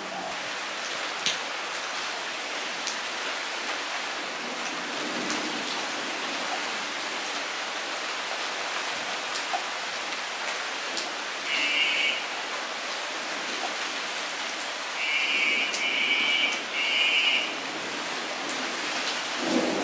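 Steady rain falling on a flooded paved surface, with single drops ticking sharply now and then. In the second half, a short high-pitched chattering sound comes in three times, louder than the rain.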